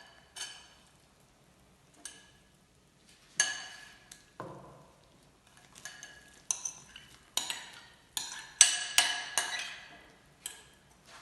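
A metal utensil clinking against dishes and the kazan as chopped onion is tipped and scraped into the pot: irregular sharp ringing clinks, a few at first and coming thick and fast in the last few seconds.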